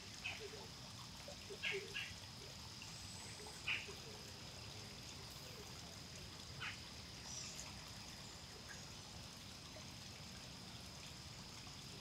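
Woodland ambience: a steady high-pitched insect drone, with a handful of short bird chirps in the first few seconds and one more a little past the middle.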